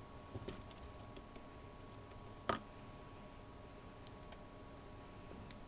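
Small clicks and taps of a screwdriver and a bare hard drive being handled, with one sharper click about two and a half seconds in and a few light ones near the end, over a faint steady hum.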